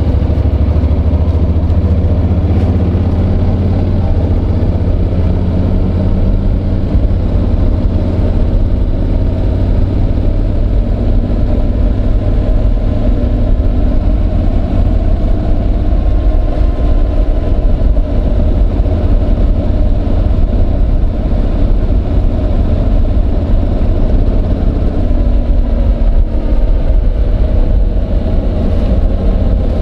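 Honda NC750X's parallel-twin engine running while the motorcycle is ridden, picked up by a microphone in the rider's jacket pocket: a steady, loud low rumble, with the engine note rising and falling slowly in the second half.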